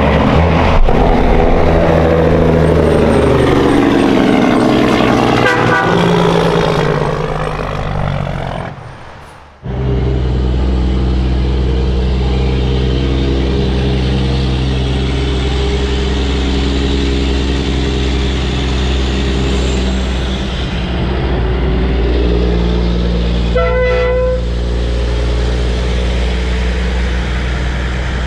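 Semi-truck diesel engines running loud and close: first a truck passing by with a shifting engine note, then, after a cut, a steady engine drone. A short air-horn blast sounds near the end.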